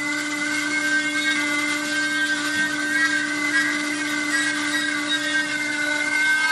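Blue Elephant EW2 13365 5-axis CNC router running: a steady high spindle whine over a constant hum, its pitch wavering slightly.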